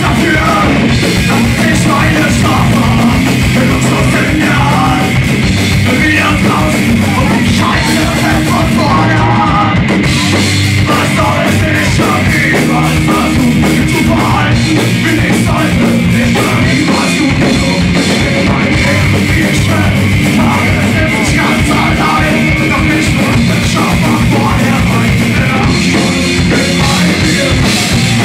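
Live punk rock band playing loud: electric guitars over a steady, driving drum kit.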